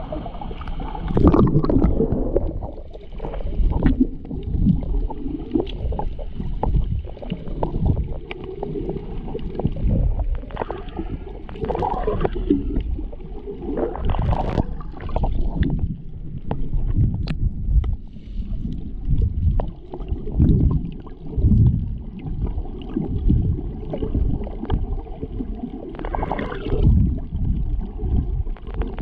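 Water sloshing and gurgling around a snorkeller, muffled and low, with irregular surges.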